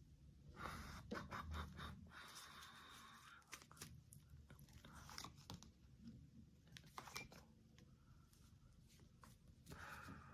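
Faint, irregular rustles and clicks of tarot cards being handled and slid on a table, with a longer sliding hiss early on and a few scattered clicks after.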